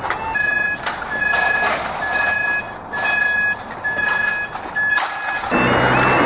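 Level crossing audible warning alarm sounding a steady high beep, about half a second long, roughly once a second. Near the end it gives way to another crossing's alarm with a stepped, warbling tone over a louder low hum.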